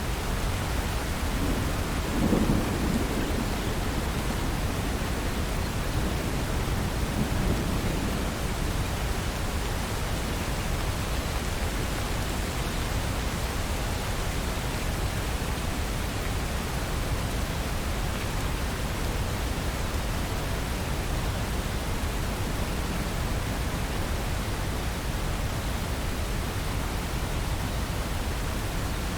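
Steady rain falling, with a low rumble of thunder about two seconds in and a fainter roll around seven seconds in.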